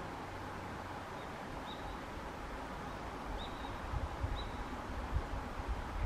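Outdoor ambience with a steady hiss and low gusts of wind on the microphone, mostly in the second half. Three short, faint, high chirps from a small bird come about two, three and a half and four and a half seconds in.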